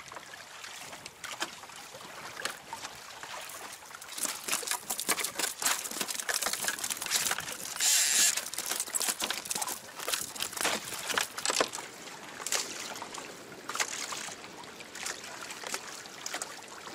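Choppy sea water splashing and slapping against the hull of a Hobie Adventure Island sailing kayak, with many sharp clicks and knocks. There is a louder hissing splash about eight seconds in.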